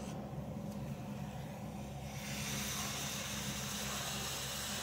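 A steady low hum, joined about two seconds in by a sudden, even hiss that keeps going.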